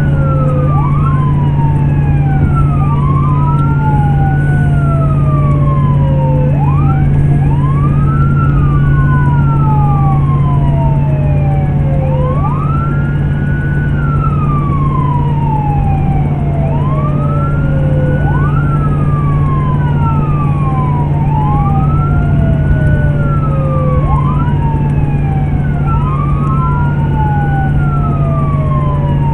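Emergency-vehicle siren on wail, heard from inside the responding vehicle: two overlapping wails, each rising quickly, holding briefly and falling slowly over about five seconds. A loud steady low hum runs beneath.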